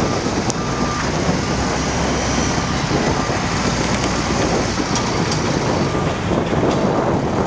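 Liebherr TA 230 articulated dump truck's diesel engine running steadily under load. Its reversing alarm beeps until about a second in.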